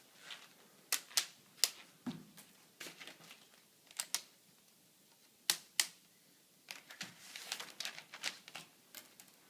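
Irregular sharp clicks and light knocks of lock rings being pulled off the stacked membrane support plates of a plate-and-frame ultrafiltration module, with one duller knock about two seconds in and a quicker run of clicks near the end.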